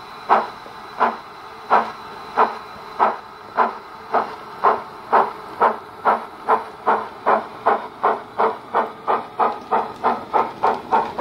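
Steam locomotive exhaust chuffs from a Bachmann 9F model's Wheeltappers DCC sound decoder, played through its tender speaker, over a faint steady hiss. The beats quicken steadily as the locomotive pulls away, from about one and a half a second to about four a second.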